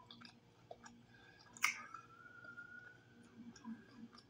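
Close-miked mouth sounds of chewing fried chicken hearts: soft wet smacks and clicks of lips and tongue, with one sharper smack about a second and a half in.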